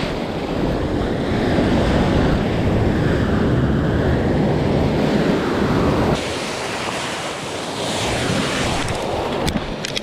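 Shore-break waves breaking and whitewater washing over rocks, with wind buffeting the microphone. The low rumble drops away suddenly about six seconds in.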